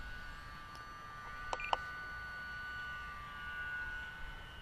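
Electric motor and propeller of an E-Flite UMX Pitts S-1S micro RC plane in flight, running as a steady high whine. About one and a half seconds in come two sharp clicks and a short double beep.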